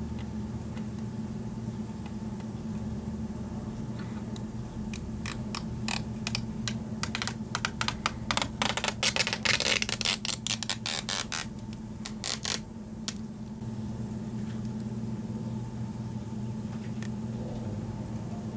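Protective plastic film being peeled off a Phanteks Glacier GPU water block, crackling in a quick run of crinkles that starts a few seconds in, is densest in the middle and stops about two-thirds through. A steady low hum runs underneath.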